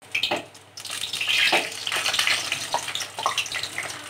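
Hot oil sizzling and crackling around a besan-batter-coated bread slice frying in a kadhai, with the slice just turned with a slotted spoon to fry its second side. The sizzling grows louder about a second in.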